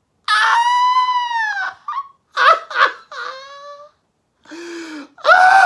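A puppeteer's exaggerated high character voice wailing and sobbing: a long high wail that falls off at its end, a few short sobs and a thin whimper, then a lower moan and a loud cry near the end.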